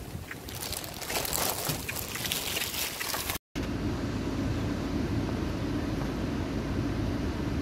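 Outdoor noise with rustling and scattered clicks. About three and a half seconds in it cuts off through a brief silence, and a steady low hum inside a car cabin follows.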